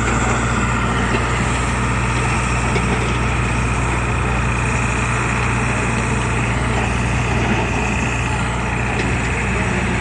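Heavy diesel construction machinery running steadily, a constant low engine drone.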